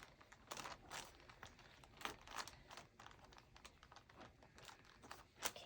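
Faint, scattered crinkles and small sticky clicks of slime being pressed and spread onto a plastic mailer packet.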